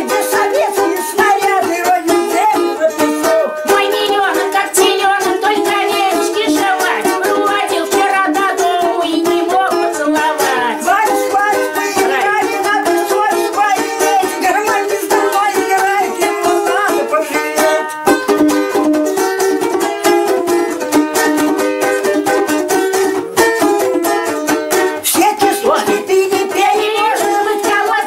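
Two balalaikas played together as a duet, strummed in a steady, even rhythm.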